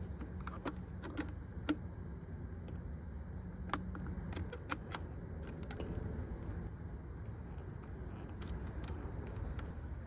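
Light metallic clicks and clinks of tools and small parts being handled while working on a motorcycle, a handful of sharp separate clicks in the first five seconds, over a steady low hum.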